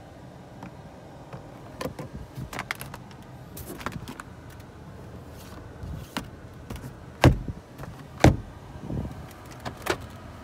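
Plastic clicks and knocks from a 2020 Hyundai Elantra's interior fittings being worked by hand: the overhead sunglasses holder, the sun visor and its vanity-mirror cover, and the glove box. Scattered light clicks throughout, with two louder knocks about seven and eight seconds in.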